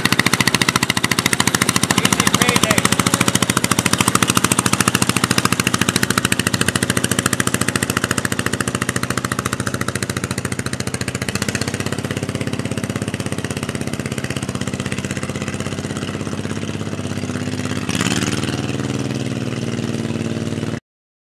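1972 Sears Suburban SS15 garden tractor's 16-horsepower engine running steadily at low revs under load, hauling a water-filled 920 lb steel lawn roller up a steep slope. The sound fades slowly as the tractor moves away, swells briefly about three seconds before the end, then cuts off abruptly.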